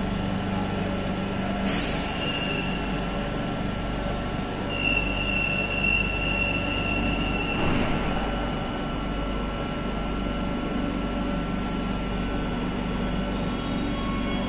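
Madrid Metro train at a platform closing up and starting off. There is a short hiss of air, then a steady high warning tone for about three seconds, a second hiss as the doors shut, and a steady electrical hum under it all as the train begins to move.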